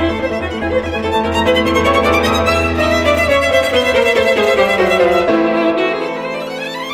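Background music led by a violin playing quick notes over a steady low bass; the melody falls in pitch through the middle, and a rising glide comes near the end.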